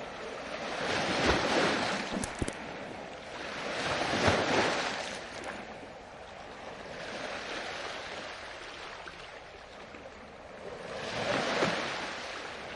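Ocean waves breaking on a beach: four swells of surf rushing in and washing back, roughly every three to four seconds, the third softer than the others. A few short crackles come about two seconds in.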